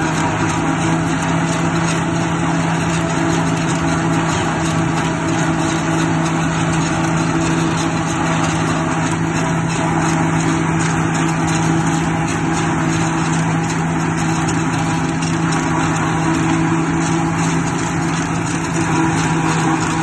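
Tractor engine and its mounted two-row corn silage harvester running steadily, cutting and chopping standing maize and blowing the chopped silage up the discharge spout: a loud, even mechanical hum over dense noise.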